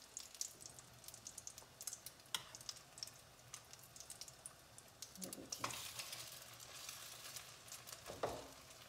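French toast frying in butter and oil in a pan: a faint, steady sizzle with small crackles, which grows louder a little past halfway as a batter-soaked slice of bread goes into the pan.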